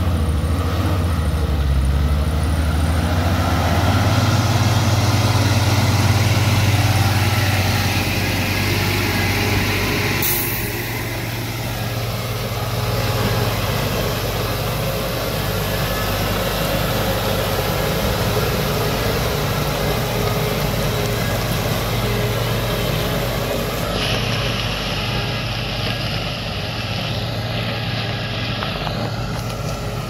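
A bus's diesel engine running as it crawls along a rutted dirt road, a steady low drone that is loudest as the bus passes close and then eases as it pulls away. A short, sharp hiss comes about ten seconds in.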